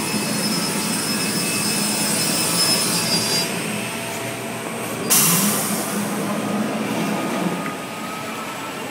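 Panhans Euro 12 panel beam saw running: a steady high whine from its spinning saw blades for the first three seconds or so, then a sudden loud hiss about five seconds in, followed by a lower hum for a couple of seconds.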